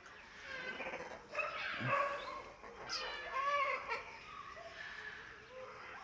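Green-winged macaws calling: a string of short, pitched calls that bend up and down, loudest about two and three and a half seconds in.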